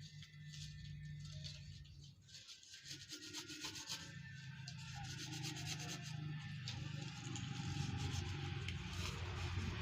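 Strips of coconut-palm leaf rustling and rubbing against each other in a rapid, irregular crackle as they are handled and woven by hand. A low steady hum underneath grows louder toward the end.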